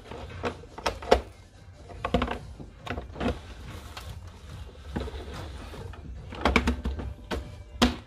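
Stainless-steel top cover of an espresso machine being lowered onto the body and pressed into place: irregular clanks, clicks and knocks of metal panel against casing, with low handling rumble.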